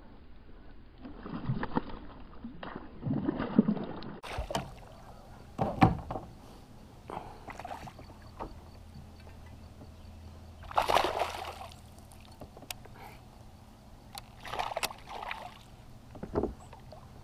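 Water sloshing and splashing around a kayak hull, with several short bursts of splashing and paddle noise.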